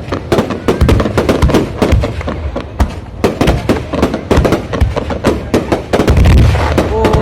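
Fireworks going off in a dense barrage: sharp bangs several times a second over deep booms.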